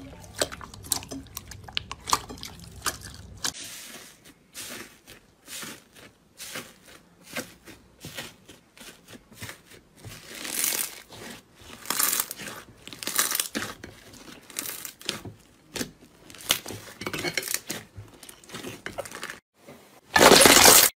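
Slime being pressed and worked by hand, giving quick crackling pops and clicks and short crunching squishes. A loud rush of noise lasts about a second near the end.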